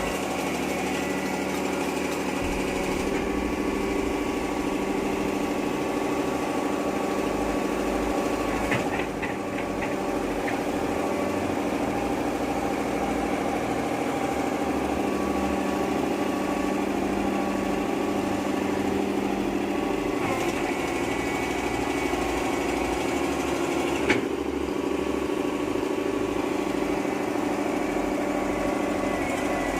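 Hitachi UH07 excavator's diesel engine running at a steady speed, with a couple of brief clicks, one about nine seconds in and a sharper one near twenty-four seconds.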